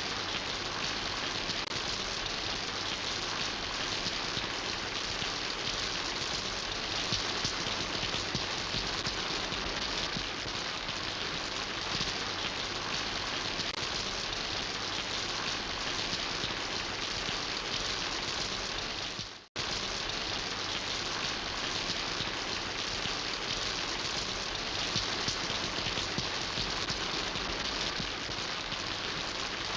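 Steady rain falling, a dense even patter of drops on surfaces. About two-thirds through it dips briefly to silence and cuts straight back in.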